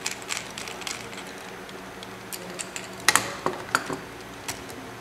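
Screwdriver tightening a wire under a receptacle's gold terminal screw and handling the outlet: small metallic clicks and scrapes, with a few sharper clicks about three seconds in, over a faint steady hum.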